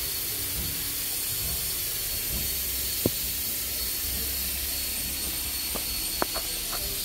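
Steady hiss with a thin high whine over a low rumble, the sound of running machinery. A few light knocks and clicks come about three seconds in and again near the end.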